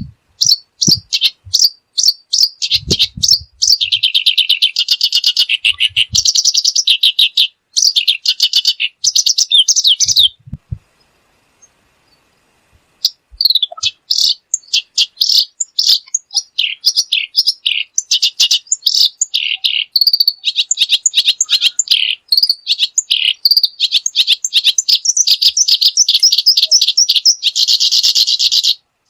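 A small songbird singing close by: long runs of fast trills and rolls of rapidly repeated notes, with a pause of about two seconds roughly a third of the way through before the song resumes.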